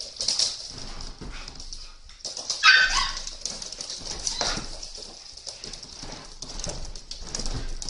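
Siberian husky and puppies playing, their paws scrabbling and skittering on a wooden floor, with one short high yelp about two and a half seconds in, the loudest sound.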